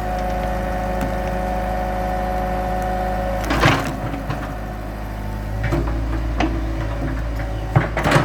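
Hitachi EX100-2 excavator's engine running steadily with a steady whine, then one loud crack a little over three seconds in and several lighter knocks and clunks later on.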